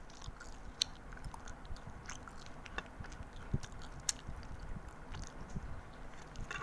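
A child chewing a mouthful of instant noodles close to the microphone, with scattered small wet mouth clicks and smacks.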